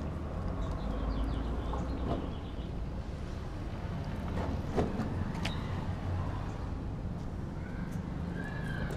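A Doberman eating from a stainless steel bowl, with a few sharp clicks and knocks about halfway through, over a steady low rumble.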